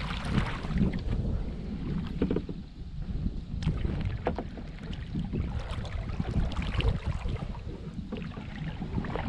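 Water splashing and dripping around a paddled kayak, in short irregular bursts, over a steady low rumble of wind on the microphone.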